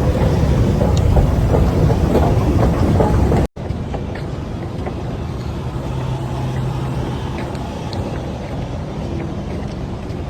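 Steady vehicle rumble with a low hum and a few faint clicks, in two clips joined by a sudden cut about a third of the way in; the second clip is a little quieter.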